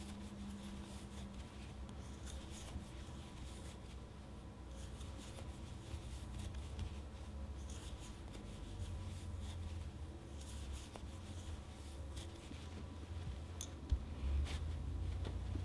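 Wooden crochet hook and chunky yarn rubbing and scraping as single crochet stitches are worked: soft, irregular scratchy strokes over a low steady hum. A sharper click near the end.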